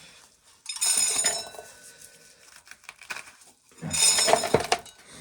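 Two short bursts of metallic clattering with a light ringing, as metal containers are handled.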